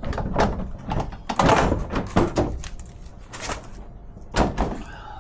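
Irregular clunks, knocks and scraping of a Toyota Tundra's factory front bumper being pulled free of its mounts by hand. The loudest, longest clatter comes about a second and a half in, with a sharp knock near the end.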